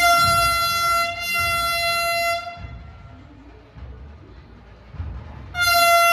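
Vande Bharat Express train horn sounding as the train arrives: one long steady-pitched blast of about two and a half seconds with a brief dip about a second in, then a second blast starting near the end, over a low rumble.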